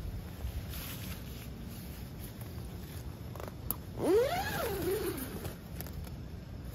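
A single animal call about four seconds in, a little over a second long: it rises quickly in pitch, then falls away with a waver. A steady low rumble runs underneath.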